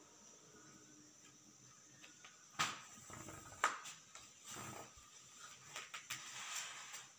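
Faint handling sounds of marking out dressmaking cloth: a clear plastic ruler knocks on the table twice and a marking pencil scratches along it in short strokes, with a few small clicks.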